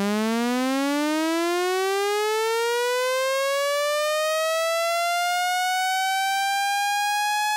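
Roland System-1 synthesizer holding one note while its pitch envelope, with the attack turned all the way up, slowly sweeps the pitch upward over two octaves, rising quickly at first and then levelling off.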